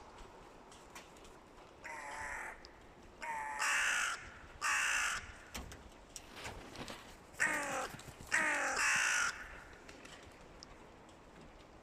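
Hooded crows cawing: a run of loud, harsh caws in two bunches, three in the first half and two more a little past the middle, each call between half a second and a second long. The calling comes from two rival crow groups, which the uploader ties to the nearing nesting season.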